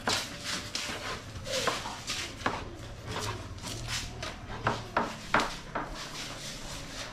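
Irregular sharp knocks and clicks of kitchen work: a knife cutting vegetables on a plastic cutting board, with utensils and dishes knocking on the counter.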